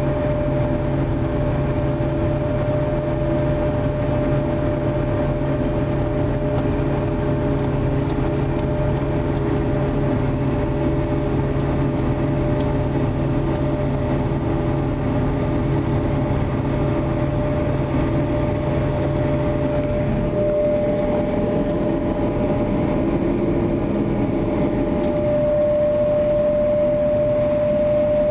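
Forage harvester and tractors running at work in a maize harvest: a steady engine drone under a strong, steady high whine. About 20 seconds in, the lower engine note drops away, as one machine changes its engine speed or moves off, while the whine carries on.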